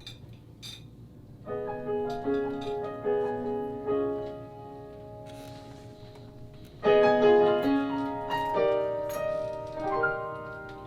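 Piano playing a song's introduction: a phrase of chords and melody starting about one and a half seconds in, then a pause, then a second, louder phrase starting about seven seconds in.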